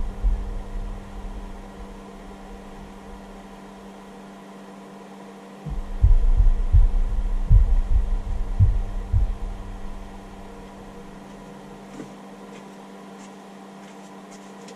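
Steady electrical hum from a hobby charger rig discharging a battery at about 75 watts. A run of heavy, irregular low thuds comes about six seconds in and lasts some three seconds, like footsteps on a floor nearby, with a few more thuds at the very start.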